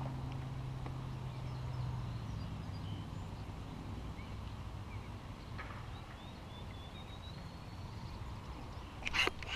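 Quiet lake ambience with faint, scattered bird calls. A low steady hum fades out about two seconds in, and a short sharp knock sounds near the end.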